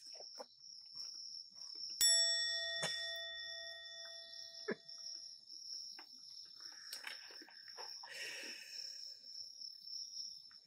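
Bell crickets chirping in a steady high trill. About two seconds in, a single chime rings out over about three seconds.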